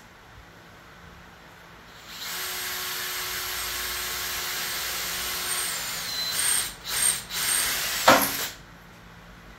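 Electric drill boring into a frame: it starts about two seconds in, runs steadily for about four seconds, then stops and starts in short bursts before cutting off near the end.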